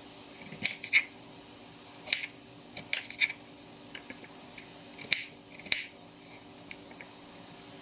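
Kitchen knife chopping potato on a cutting board: a string of irregular sharp knocks as the blade goes through and strikes the board, some coming in quick pairs.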